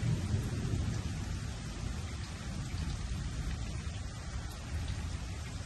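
Steady rain falling, with the low rumble of a thunderclap dying away in the first second or so.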